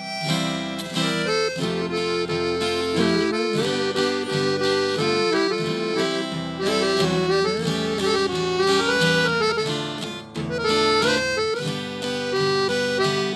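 Instrumental ending of a sertanejo song: an accordion plays the melody over guitar accompaniment, with no singing.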